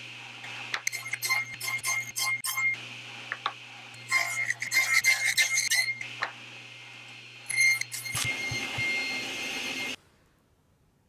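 Table saw running, its blade cutting a maple and padauk block in several passes: each cut is a loud, high whine over the saw's steady hum. The hum stops about eight seconds in, and the sound cuts off sharply near the end.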